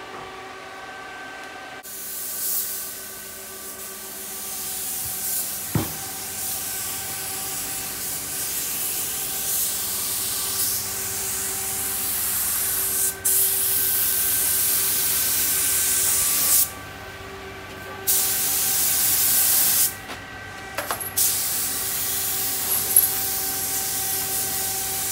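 Paint spray gun hissing as it sprays the steel floor of a truck's flatbed, starting about two seconds in and stopping and restarting a few times as the trigger is released. A steady machine hum runs underneath.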